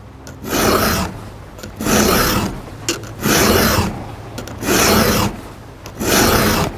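Chainsaw file rasping across a chain cutter tooth in five strokes, about one every second and a half. The tooth is dull, so the file glides across it rather than biting.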